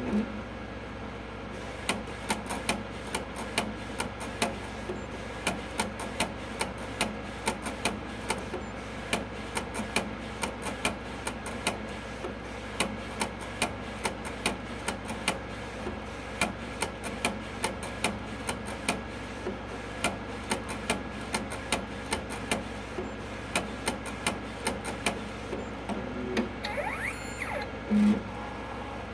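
Primera Eddie edible-ink cookie printer running: a steady machine hum with sharp clicks, about two a second, from its moving mechanism. Shortly before the end comes a brief rising whine, then a couple of louder knocks.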